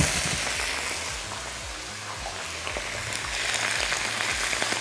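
Raw chicken pieces sizzling in hot cooking oil in a wok, just after going in. The frying hiss is loudest at first, eases a little about two seconds in, then picks up again.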